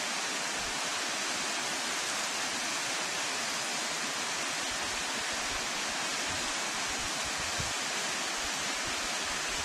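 Waterfall pouring down a rock bluff: a steady rush of falling water.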